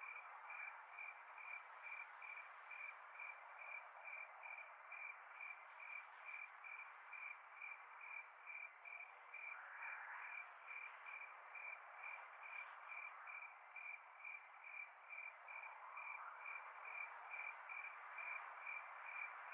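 Faint evening chorus of crickets and frogs. One high-pitched caller pulses evenly, nearly three times a second, over a steady hiss of other insects.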